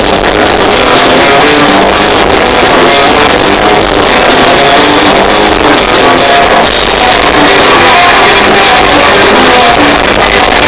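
Rock band playing live on stage, with drum kit and sustained guitar or keyboard tones, heard from the audience. It is recorded loud, at a flat level close to full scale.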